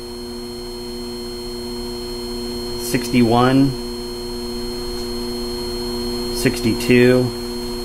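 Henderson powered case trimmer's electric motor running steadily on its high speed setting: a steady, fairly quiet hum with several fixed tones. A man's voice cuts in briefly twice, reading out meter numbers.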